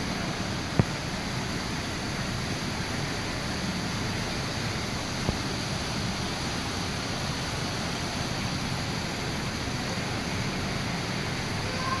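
Indoor artificial waterfall running steadily over rocks into a pool, a constant rushing of water. Two short sharp clicks cut in, about one second in and again about five seconds in.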